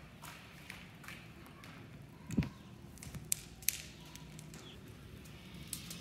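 Scattered footsteps and light taps on a hard floor, with a dull thump about two and a half seconds in and two sharp clicks a second later.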